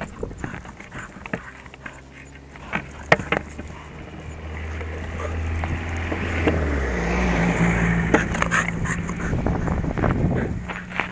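Longboard wheels rolling on a rough road surface, with a low rumble and hum that builds as the board picks up speed about halfway through. Sharp clicks and knocks sound now and then over the rolling.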